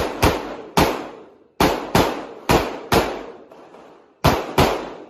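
Handgun fired rapidly, about nine sharp shots in five seconds, mostly in quick pairs (double taps), each shot trailing off in a short echo.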